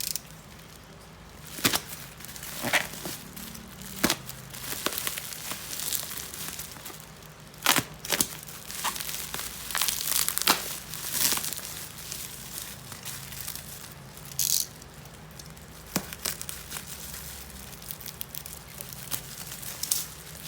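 Packaging being handled during an unboxing: irregular crinkling and crackling of wrapping, with scattered sharp clicks and rustles.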